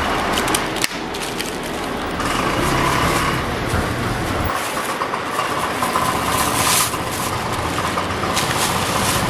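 Busy street noise with traffic running steadily. Over it, white wrapping paper and a thin plastic carrier bag rustle and crinkle as a packet of sundae (Korean blood sausage) is wrapped and bagged, with a louder crinkle about two-thirds of the way through.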